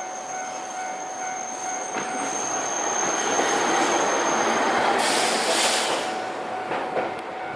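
A Hankai Tramway tram rolling across a level crossing while the crossing's warning bell rings. The rail noise builds to a peak in the middle, with a loud hiss about five seconds in and a sharp clack near the end; the bell stops shortly before the end.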